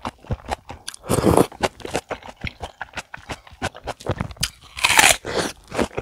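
Close-miked chewing of a mouthful of tteokguk (rice cake soup): dense wet mouth clicks and smacks. Two louder noisy bursts come about a second in and near the end.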